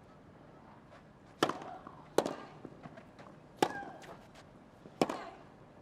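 Tennis rally: a ball struck by rackets four times, about one and a half seconds apart, with fainter bounces between and a short player's grunt on some strokes.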